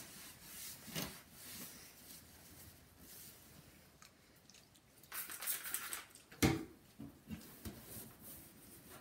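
Paper towel rustling and rubbing against the plastic casing of a Samsung SyncMaster 700s CRT monitor as it is wiped down. There are scattered light taps, with the sharpest knock about six and a half seconds in.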